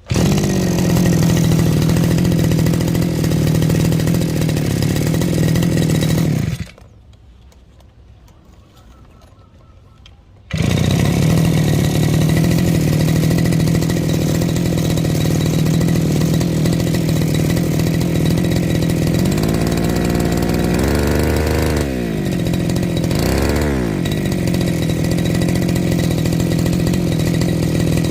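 Brush cutter's small petrol engine running at high speed. It cuts off abruptly after about six and a half seconds and is back about four seconds later. Past the middle, its speed sags and picks up again twice.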